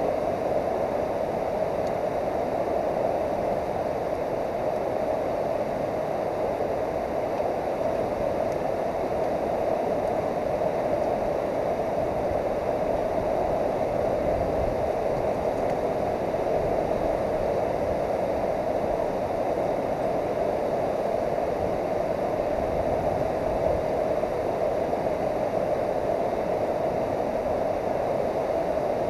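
Steady rush of fast, churning river water, a constant even roar that does not change.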